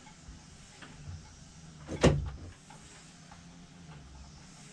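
One sharp knock or bang about two seconds in, against faint background noise.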